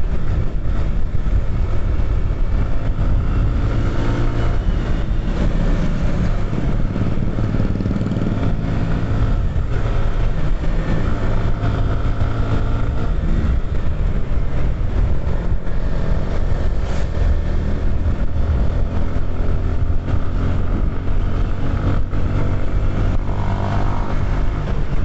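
Suzuki sport motorcycle's engine running while riding at speed, its pitch rising and falling.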